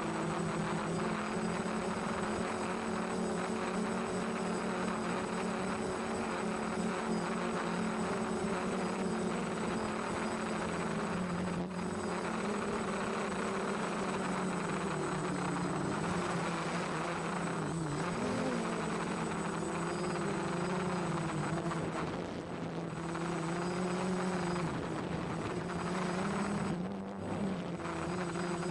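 F450 quadcopter's four brushless motors and propellers buzzing steadily in flight, the pitch wavering with the throttle and dipping briefly twice near the end.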